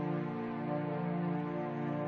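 Background music: slow instrumental chords held steadily.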